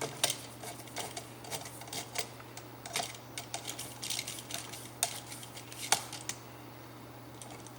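Small scattered clicks and ticks of a screwdriver and copper wire working against an electrical outlet's screw terminal as the looped wire is tightened down, with a couple of sharper clicks near the end, over a faint steady low hum.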